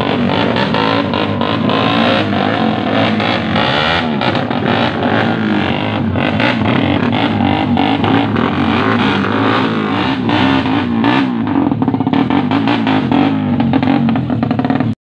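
Two drag-tuned motorcycles revving at the start line, engine pitch rising and falling repeatedly, with rapid popping from the exhausts.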